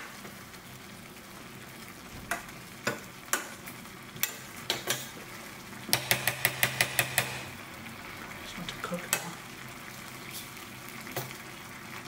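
Long metal ladle stirring thick red split lentil dal in a stainless steel saucepan, scraping and knocking against the pan now and then. About six seconds in comes a quick run of about eight knocks. Under it all is a steady hiss from the simmering pot.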